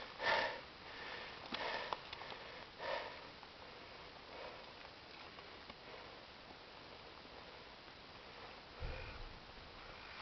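Faint sniffs and breaths close to the microphone: a few soft ones in the first three seconds, then another near the end.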